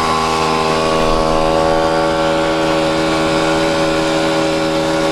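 A small engine running steadily at an even speed, its pitch easing slightly lower near the end.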